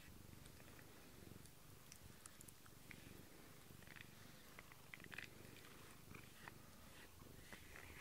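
A cat purring faintly and steadily while being scratched under the chin, with a few faint soft ticks over it.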